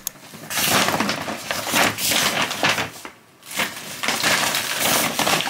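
Loud, crisp crunching of firm food, in two stretches with a short break about three seconds in.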